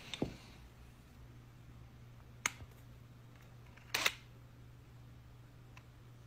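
A spoon tapping against a plastic powder tub and a cup: three short, sharp clicks about one and a half to two seconds apart, over a faint steady hum.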